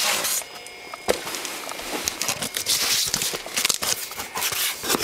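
Crinkling and rustling of things being handled, with scattered sharp clicks.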